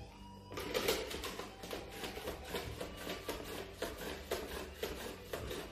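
A tangelo orange being pushed back and forth across a kitchen mandoline slicer's blade in its hand guard, cutting thin slices. It makes quick, repeated scraping strokes, about three or four a second, starting about half a second in.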